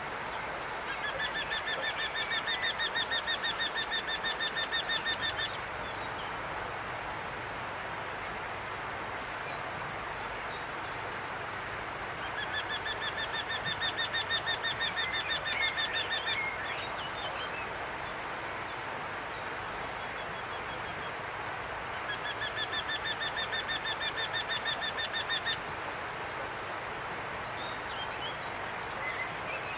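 A bird calling in three bouts of a rapid trill, each a quick run of repeated notes lasting about four seconds, about ten seconds apart, over a steady background hiss.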